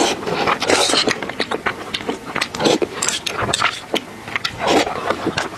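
Close-miked eating sounds: a noisy slurp of noodles about a second long at the start, then chewing with many short wet mouth clicks.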